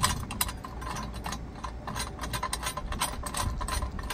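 Light, irregular metal clicking as a nut is threaded by hand onto a U-bolt exhaust clamp, the nut and clamp hardware ticking against each other.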